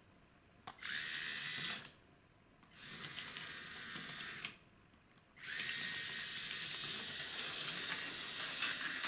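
Small electric motor of a battery-powered toy train running with a high whine, in three spells: about a second, stopping, nearly two seconds, stopping, then on steadily from about halfway through. A click comes just before the first spell.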